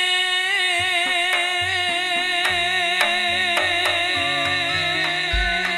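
Madurese gending music from a gamelan ensemble: one long held note wavers slightly throughout, over drum strokes and lower stepping notes. A low thump comes near the end.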